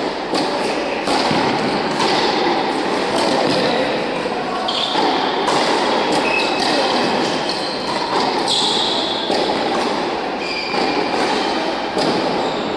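Tennis rally on an indoor hard court: racket strikes and ball bounces echoing in a large hall over a steady background din.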